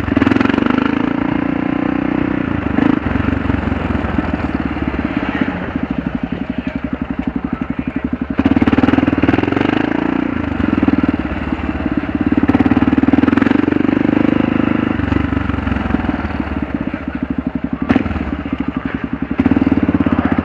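Kawasaki KLR 650's single-cylinder four-stroke engine running under way with a steady pulse, growing louder for a few seconds at a time, about two-fifths of the way in, again just past halfway, and near the end.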